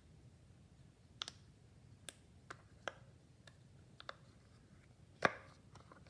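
Silicone push-pop bubble fidget toy being pressed by fingers, giving about seven irregular sharp pops, the loudest a little over five seconds in.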